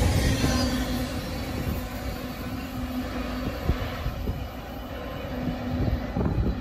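Tail end of a double-stack intermodal freight train rolling past on welded rail, its wheel and car rumble fading as the last well cars move away. A low rumble swells again near the end.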